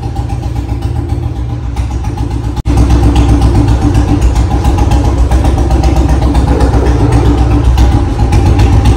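Royal Enfield Bullet's single-cylinder engine idling steadily, jumping abruptly louder about two and a half seconds in.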